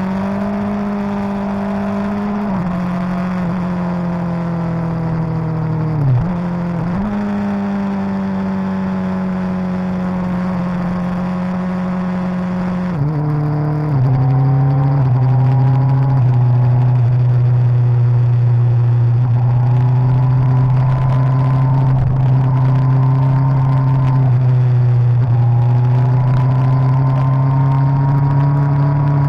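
Suzuki GSX-R1000 inline-four engine running at fairly steady revs while riding through corners. There is a brief dip and recovery in pitch about six seconds in. About 13 seconds in it drops to a lower, louder note and holds it.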